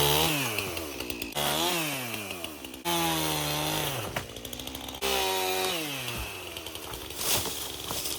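Chainsaw revving in four separate bursts that start suddenly, each falling in pitch as the throttle is let off, while cutting downed trees.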